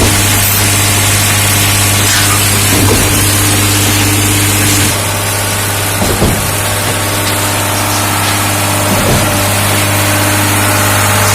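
SCP 5200 concrete pump running with a steady low hum, and a knock about every three seconds as it cycles through its pumping strokes.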